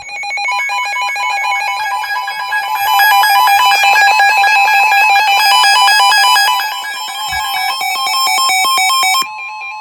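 Emergency Alert System attention tones: several loud electronic alert tones sounding over each other, some held steady and some switching rapidly in pitch. They swell about three seconds in and ease back a few seconds later. Near the end most of them cut off, leaving a single steady tone.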